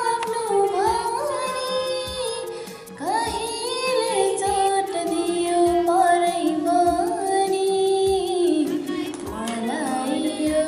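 A teenage girl singing a song solo, holding long notes joined by gliding ornaments, with a short breath pause about three seconds in.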